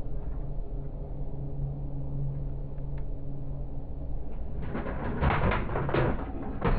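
Diesel-electric freight locomotives passing, heard from inside a car: a steady low engine drone, then from about four and a half seconds in, loud uneven clattering of the train's wheels over the rails.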